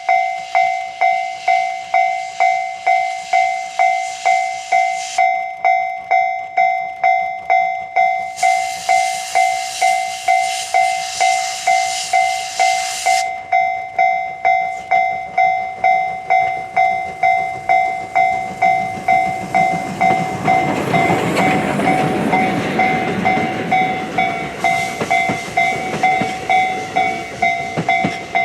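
Railway level-crossing warning bell ringing in an even, repeating double-tone pulse, about one and a half strikes a second. Partway through, a train rumbles past over the crossing, its noise swelling and then fading while the bell keeps ringing.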